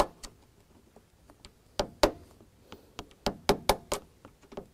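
Sharp metal-on-metal taps from a hand tool knocking at the bottom mounting pin of a Chrysler Crossfire main lift cylinder, trying to drive the pin through the washer and bracket. Two taps come first, then a short pause, then a run of about a dozen quick, uneven taps.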